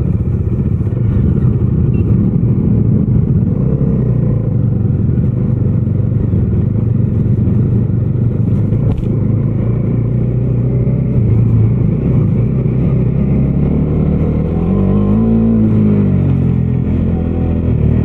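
Bajaj Dominar 250's single-cylinder engine running steadily on a dirt track, with a brief rise and fall in revs about fifteen seconds in.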